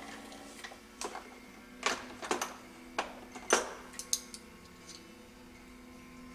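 Scattered light clicks and taps of small metal parts and tools being handled on a workbench, one sharper knock about midway, over a steady low hum.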